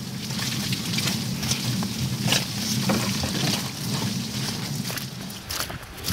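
Horse-drawn wooden cart rolling along a rutted, muddy dirt track: a steady rumble and rattle from the cart and wheels, with a few sharp knocks.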